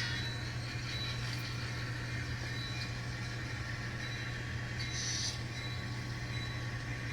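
An N scale model diesel locomotive's sound decoder playing a steady engine hum through its tiny speaker, with a brief hiss about five seconds in.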